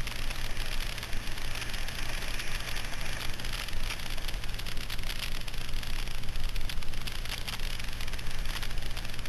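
Honda NPS50 Zoomer moped's small four-stroke single-cylinder engine running steadily under way, with a continuous hiss and fine crackle of tyres on loose gravel and rattling picked up by the handlebar-mounted camera.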